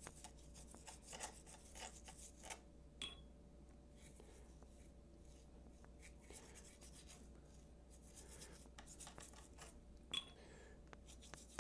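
Faint scratchy strokes of a flat paintbrush brushing a thin acrylic wash onto a 3D-printed model's surfaces, coming at irregular intervals.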